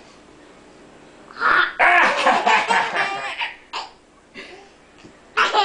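Laughter, with a toddler's high voice among it, in a loud stretch after a quiet first second and a half; a short falling vocal sound comes near the end.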